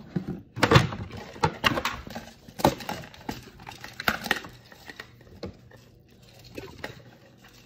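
Plastic spoon clicking and scraping in a plastic bowl of rice: a series of sharp, irregular clicks, busier and louder in the first few seconds, then sparser.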